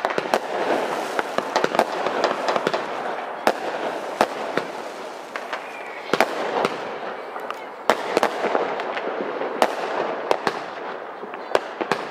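Fireworks going off: mortar shells and roman candles bursting, with many sharp bangs at irregular intervals over a constant crackle.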